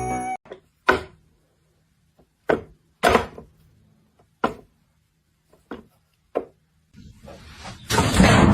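A series of sharp single knocks, about six spread irregularly across several seconds, then a louder noisy clatter building near the end.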